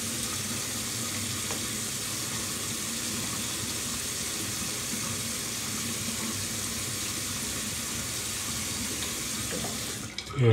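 Tap running steadily into a bathroom sink, a constant rushing hiss that is shut off near the end, with a brief thump as it stops.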